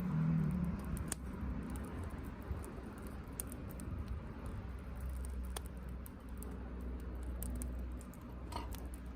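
Wood fire crackling, with irregular sharp pops and ticks over a low steady rumble.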